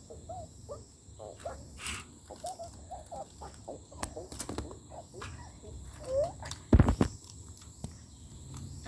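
A kitten playing with a toy close to the camera: scattered light clicks and knocks, with one heavy thump about seven seconds in.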